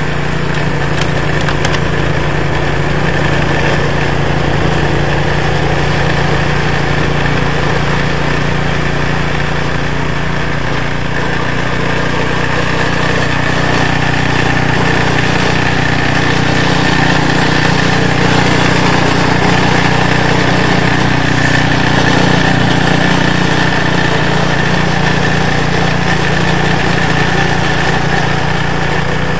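REDVERG RD-SB60/950BS-E petrol snowblower running steadily under load, its engine holding an even pitch while the auger and impeller throw snow out of the chute.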